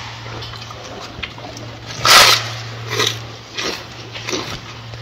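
Gorilla chewing a mouthful of lettuce in a few short bursts of mouth noise, the loudest about two seconds in, over a steady low hum.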